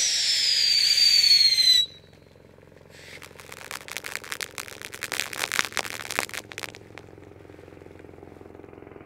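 Howling Coyote firework fountain giving a loud, shrill whistle that slides down in pitch for about two seconds, then a dense spell of crackling from about three seconds in that lasts some four seconds. It then settles into a quieter steady hiss.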